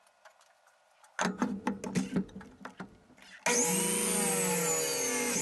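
Knocks and clatter of a wood block being set against the saw fence, then a miter saw switched on about three and a half seconds in, its motor whining steadily as the blade comes down into a mulberry block.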